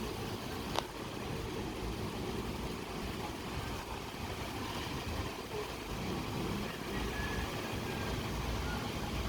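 Steady outdoor city ambience: a low rumble of distant traffic under an even hiss of light rain, with a single sharp click about a second in.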